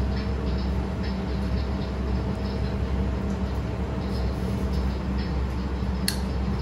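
Steady low rumble of restaurant kitchen equipment, with faint light taps as ramen toppings are placed into a ceramic bowl with chopsticks, and one sharp clink about six seconds in.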